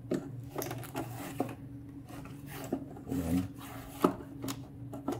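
Handling of cables and plastic connectors inside the open metal case of an SLE 5000 infant ventilator: rubbing and scraping with scattered small clicks and knocks, the sharpest about four seconds in. A steady low hum runs underneath.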